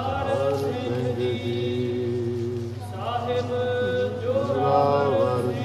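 Sikh devotional hymn singing (kirtan): a voice holding long, wavering notes over a steady low drone, in two phrases with a short break about three seconds in.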